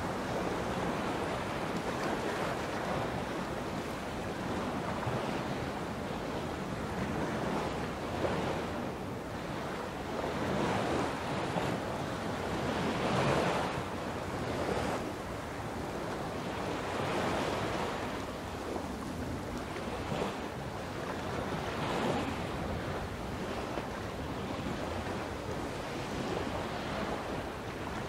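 Sea waves breaking and washing onto a beach: a continuous surf that swells every couple of seconds.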